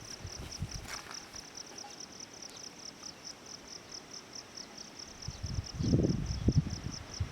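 An insect, cricket-like, chirping in a rapid, even, high-pitched pulse. About five seconds in, a low rumbling noise starts and becomes the louder sound.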